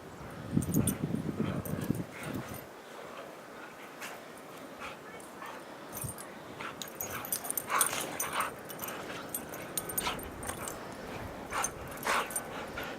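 Siberian huskies whimpering and yipping in short separate calls, coming more often from about six seconds in.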